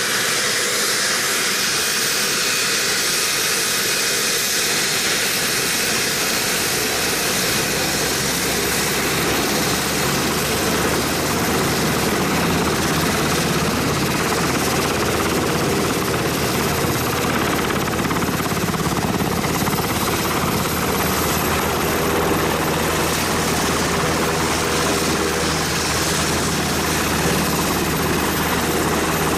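Sikorsky Seahawk helicopter running on the ground: the high whine of its twin turboshaft engines, with the low beat of the turning main rotor growing stronger a few seconds in.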